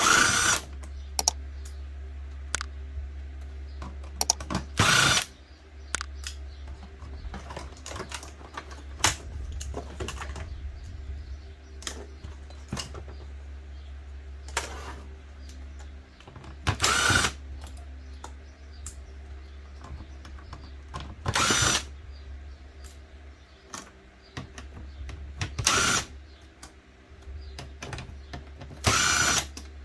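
Power drill-driver running in short bursts of about half a second to a second, six times, backing screws out of a plastic electronics casing, with small clicks and rattles of plastic parts and screws being handled between the bursts.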